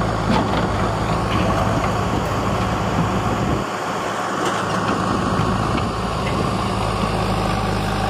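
Tata 2518 tipper truck's diesel engine running steadily at low speed, easing off briefly about halfway through.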